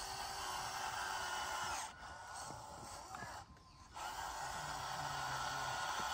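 Miniature model Massey Ferguson 385 tractor's small drive motor and gears whirring as it pushes its blade through sand. The whir dies down about two seconds in, stops briefly, and starts again about four seconds in.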